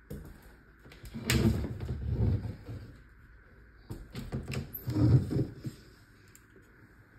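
White louvered bifold closet doors being folded and moved: two rattling, clattering bursts with clicks, each about a second and a half long, starting about three seconds apart.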